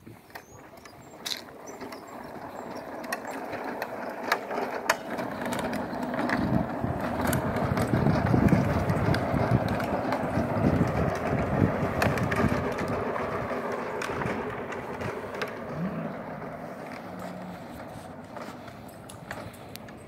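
Small hard wheels rolling over asphalt, a rough steady rumble that builds to its loudest around the middle and then fades, with scattered small clicks.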